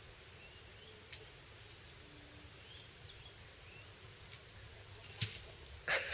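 Faint outdoor background with scattered small bird chirps and a few light clicks, then near the end a loud rustling crash as an echidna topples over backwards onto dry wood-chip mulch.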